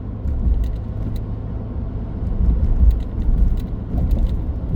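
Road and engine rumble heard inside a moving vehicle's cab at highway speed, with a few faint ticks or rattles.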